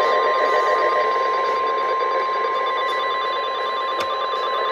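NOAA Weather Radio's 1050 Hz warning alarm tone, one steady high-pitched beep held unbroken, over radio reception hiss. This is the tone that precedes a warning broadcast, here a tornado warning. There is a short click about four seconds in.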